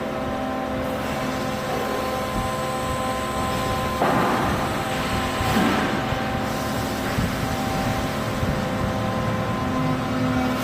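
Toshiba IS 2500 DFB injection moulding machine running: a steady mechanical hum with several held tones over a low rumble, with a louder rushing surge about four seconds in and another about a second and a half later.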